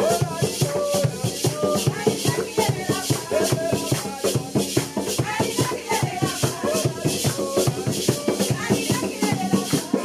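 Live dance music: drums and shakers keeping a quick, steady beat, with bass and voices over it.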